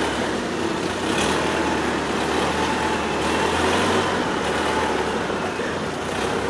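Motorboat engine running steadily at cruising speed, a constant low hum, with water rushing along the hull.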